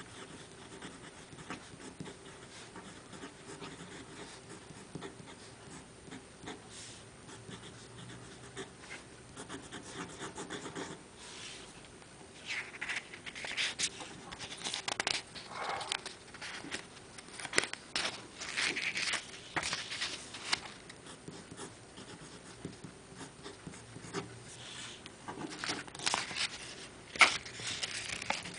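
Fountain pen nib scratching faintly on a paper card. From about twelve seconds in come louder rustles of the card being handled, and near the end a sharp paper flick as a page of the twine-bound card booklet is turned.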